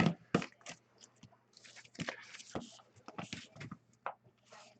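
Cards and packaging being handled: soft rustling with scattered light clicks and taps.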